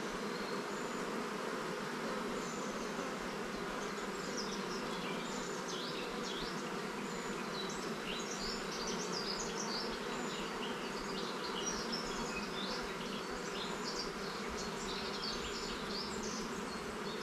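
Honeybees from an open hive buzzing in a steady, unbroken drone. The colony is agitated because it is being transferred to a new hive.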